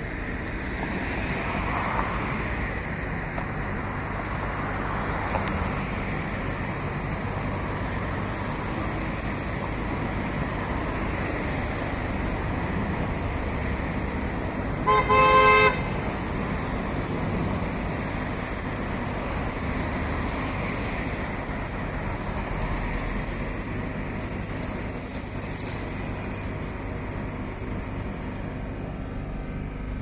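City bus engine and road noise heard from inside the cabin as the bus drives on. About halfway through, a vehicle horn sounds one short, loud honk.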